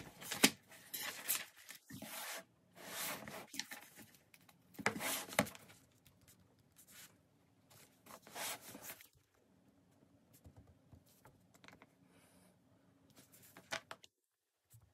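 Fabric and sewing materials being handled: a run of short rustles and scrapes, with a few more about eight seconds in, then mostly quiet apart from a couple of small clicks near the end.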